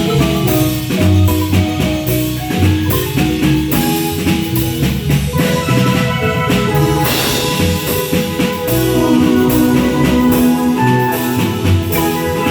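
Marimba band playing: rapid mallet notes on the marimba over a steady drum beat and low bass.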